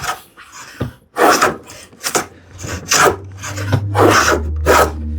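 Combination plane plowing a groove in wood: a run of short, quick cutting strokes, about two a second, each a rasping swish of the iron taking a shaving. The short strokes fit working the groove from the front end of the board first.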